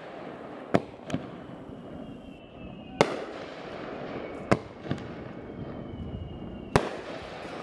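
Aerial fireworks shells bursting: six sharp bangs at uneven intervals, two of them coming as close pairs, over a steady background hiss.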